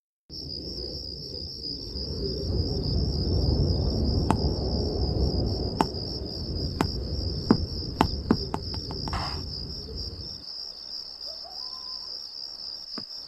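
Crickets trilling steadily over a low rumble, a night ambience effect. The rumble stops about ten seconds in. A handful of sharp clicks sound in the middle.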